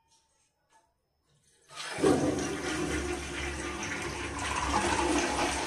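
Toilet flushed with its tank lever: after a near-silent start, water rushes loudly into the bowl about two seconds in and keeps running steadily.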